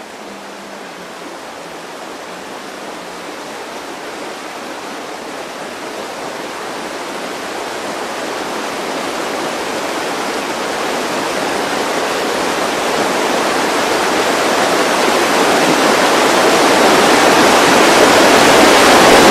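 A steady rushing noise, spread evenly from low to high, grows gradually and evenly louder into a loud wash.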